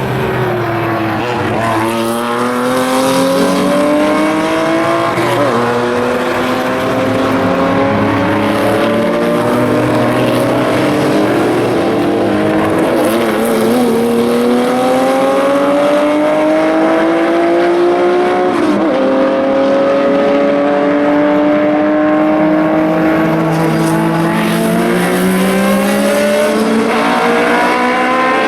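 Historic racing car engines accelerating hard, the note climbing steadily with sharp drops at upshifts about 5 s and 19 s in.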